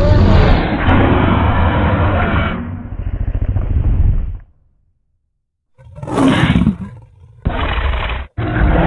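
Indominus Rex creature roars, a designed dinosaur voice layered from animal recordings. A long, rough roar runs for about four seconds and rattles as it trails off. After a second of silence come shorter roars, and a new one starts near the end.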